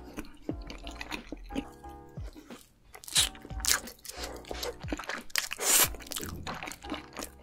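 Close-miked eating sounds: crunching bites of fried chicken and chewing with melted cheese sauce, loudest about halfway through. Soft background music with a steady beat plays underneath.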